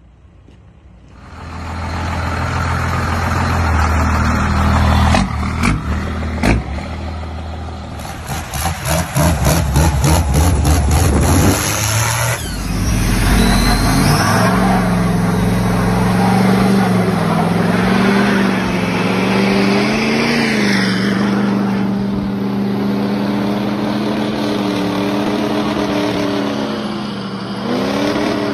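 Diesel pickup engines revving. The first revs hard at the exhaust, with a few sharp cracks and a quick run of pulses in the middle. About twelve seconds in, a Ford Super Duty diesel takes over, held at high revs with its rear tyre spinning in a burnout.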